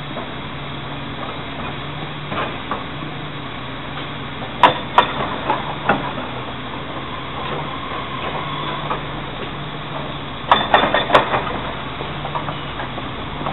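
Class 175 diesel multiple unit approaching slowly, its diesel engines giving a steady low drone. Two clusters of sharp clacks come about four and a half and ten and a half seconds in.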